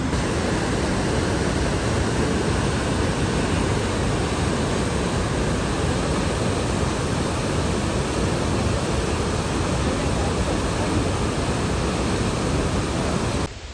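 Loud, steady rush of fast-flowing water, a waterfall or canyon rapids, which cuts off suddenly near the end.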